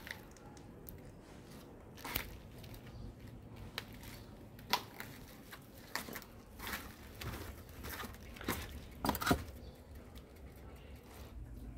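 Irregular footsteps crunching on a gravel garden path: a scatter of short crunches and clicks, loudest about three-quarters of the way through.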